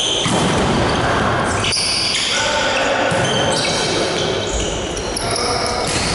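Volleyball rally in a sports hall: a sharp ball hit about two seconds in, over the steady echoing noise of the hall.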